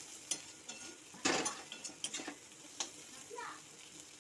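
Metal spatula scraping and turning vegetables in a kadai (wok) in several separate strokes, the loudest about a second in, over a faint sizzle of frying.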